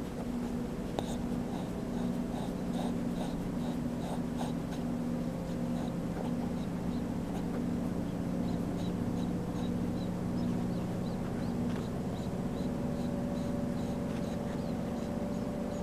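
A pet breathing heavily in a quick, even rhythm, with small regular clicks about two to three times a second, over a steady low hum.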